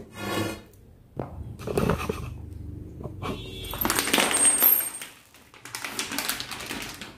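Parts of a drum seeder being handled for assembly: a series of clinks, knocks and scrapes from the metal rod and the plastic wheels and drums. The longest and loudest scrape comes about four seconds in, with a high ring over it.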